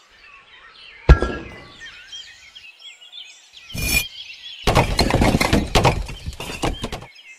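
Miniature clay bricks dropped into a toy truck's bed. There is a sharp clunk about a second in and another near four seconds, then a handful of bricks rattles and clatters together for about two seconds. Birds chirp faintly in the background.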